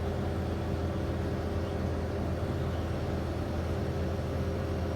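Steady drone of running engine-room machinery: a constant low hum with several steady tones over it, unchanging throughout.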